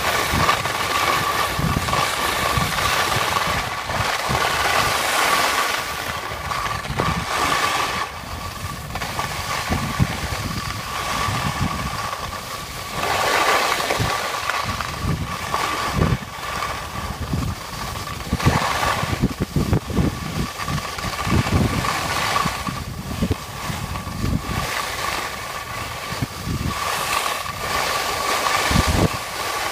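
Wind buffeting the microphone of a camera carried downhill on skis, mixed with the continuous hiss of skis sliding on hard-packed snow. A steady faint tone runs through it.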